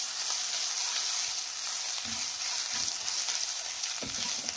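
Fennel seeds, fenugreek seeds and grated ginger sizzling steadily in hot mustard oil in a black metal kadhai, being roasted (bhuna) while a silicone spatula stirs them, giving a few soft knocks against the pan.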